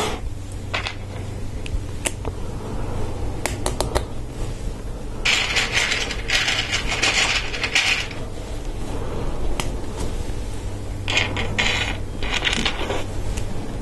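LEGO Technic plastic parts being handled and pressed together: sharp single clicks, then two longer spells of dense plastic clattering and rattling.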